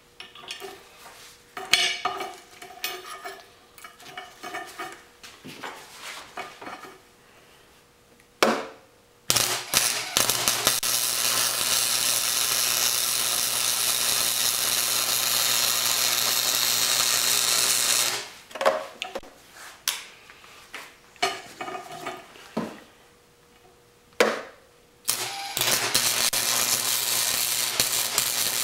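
Clanks and clicks of steel parts being handled with pliers on a steel bench, then a wire-feed welder's arc crackling steadily for about eight seconds over a low electrical hum. After more clanking, a second weld starts a few seconds before the end.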